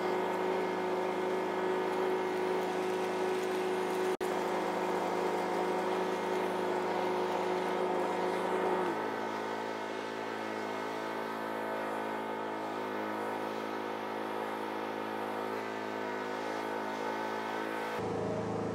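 John Deere 100-series riding lawn mower engine running steadily while the mower is driven, now staying running properly after its fuel and tank vent hoses were blown clear. The engine note steps lower about nine seconds in.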